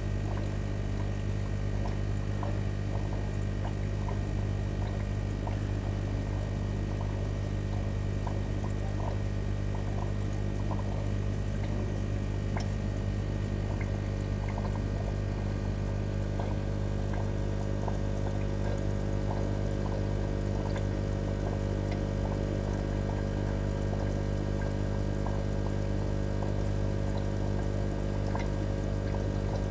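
Aquarium pump running with a steady low hum, water trickling and many small scattered ticks over it.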